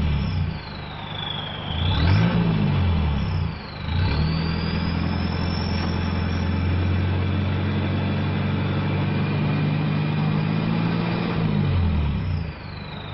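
Toyota Hilux Vigo engine revved: a short blip about two seconds in, then revved up about four seconds in and held high until near the end, when it drops back to idle. Over it a turbo whistle, set up on the stock turbocharger, rises and falls with the revs and holds a high steady whistle while the revs are held.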